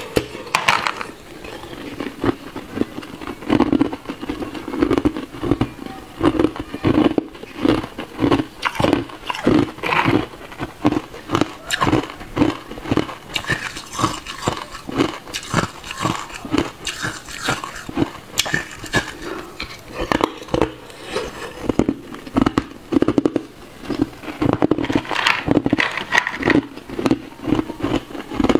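Hard, clear ice cubes being bitten and chewed, close-miked: a continuous run of sharp crunches about one to two a second.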